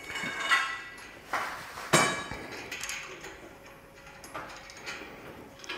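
Metal hardware clinking and rattling against the metal basket of a garage storage lift as a steel lifting cable is threaded through a carriage bolt, with a few sharp metallic knocks that ring briefly.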